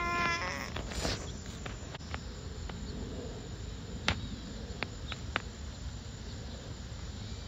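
Outdoor background with a steady low rumble. A toddler gives one short voiced sound right at the start, and a few scattered sharp clicks follow.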